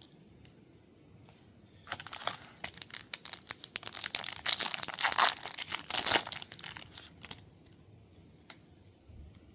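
A Panini Prizm trading-card pack wrapper being torn open and crinkled. A dense run of crackling tears starts about two seconds in, is loudest in the middle and dies away a couple of seconds before the end.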